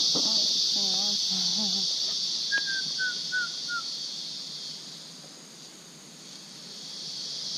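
Steady, high-pitched insect chorus that fades for a couple of seconds past the middle and swells back near the end. About two and a half seconds in, a bird gives a run of four short, falling whistled notes.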